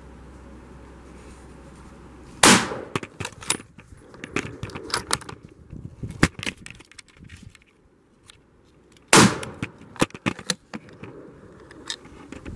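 Two rifle shots about six and a half seconds apart, each followed by a run of sharp clicks, knocks and rustling as the rifle and camera are handled.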